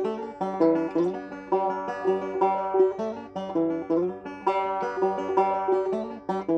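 Banjo played solo: a reel tune, plucked notes following one another in a quick, even rhythm.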